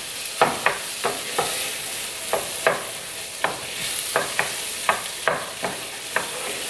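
Arborio rice and mushrooms sizzling steadily in oil in a stainless steel skillet while a wooden spoon stirs and scrapes through them in quick repeated strokes, about two or three a second. The rice is being toasted in the oil to a light golden colour.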